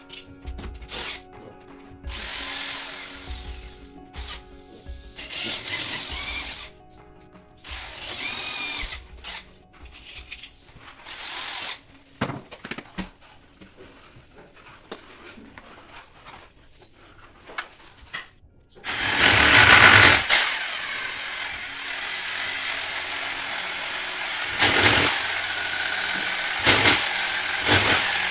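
Corded power drill run in several short bursts of about a second each, then running steadily for about nine seconds, the later run drilling into the tiled wall. Faint background music underneath.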